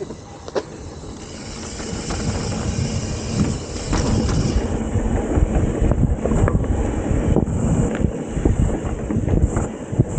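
Mountain bike rolling fast over a dirt singletrack: tyre noise on dirt with the frame, chain and parts rattling and clattering over bumps, growing louder about four seconds in.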